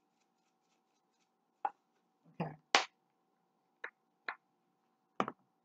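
A jar of garlic salt being shaken and tapped to knock loose salt that has caked from air getting in: six sharp, separate knocks, the loudest about three seconds in, over a faint steady hum.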